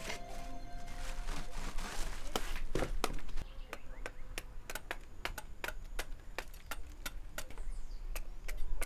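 Knife peeling cassava roots by hand: irregular sharp clicks and scrapes of the blade cutting and stripping the peel, denser and louder in the first three seconds or so.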